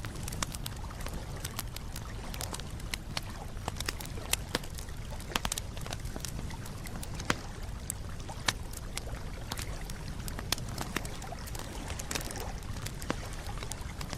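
Campfire crackling: irregular sharp snaps and pops, several a second, over a steady low rushing sound.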